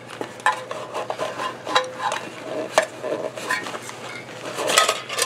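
Stainless steel canteen cup being handled and slid into a fabric pouch on a backpack: scattered light metallic clinks and scrapes with fabric rustling, and a louder rustling scrape near the end.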